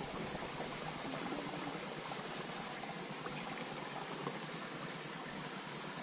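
Small stream of water running over rocks, a steady even rush.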